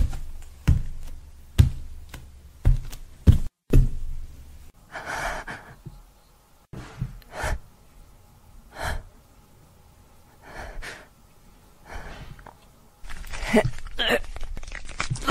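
A woman's acted gasps and heavy breaths, spaced a second or two apart, voicing the strain of a werewolf transformation. Several sharp thuds over a low rumble come in the first four seconds, and a strained, groaning 'heh-urgh' comes near the end.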